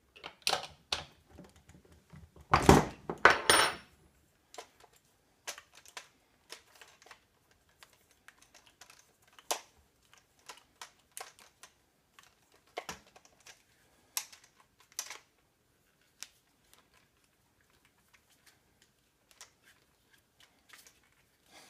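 Scattered metal clicks and clatter as the slingbow's fishing reel and its mount are handled and tightened with a small wrench on a wooden tabletop. The loudest clatter comes about three seconds in, then lighter ticks.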